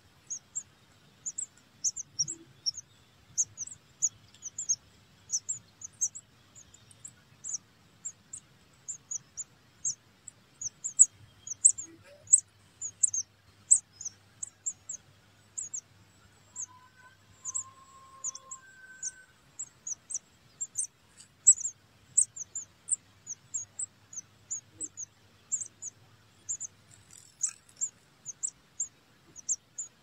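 Nestling birds begging: a continuous rapid series of thin, very high-pitched peeps, about three a second. A few brief, lower notes sound around the middle.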